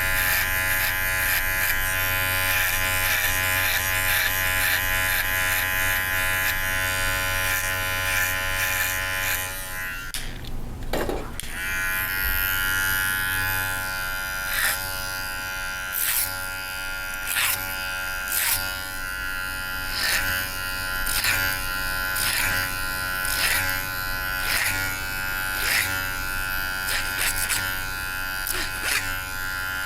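Electric hair clippers buzzing steadily while trimming short hair. About a third of the way in the buzz briefly drops, then short strokes through the hair come roughly once a second over the steady hum.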